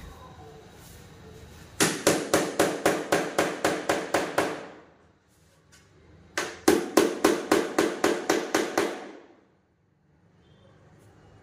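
Hammer blows on wood in two quick runs of about a dozen strikes each, roughly five a second, each run tapering off at the end.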